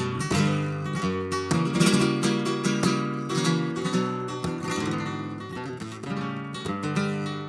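Flamenco guitar played solo, mixing strummed chords with picked notes, as the guitar introduction to a fandango. Hard strummed chords ring out in the first three seconds, then the playing grows a little quieter.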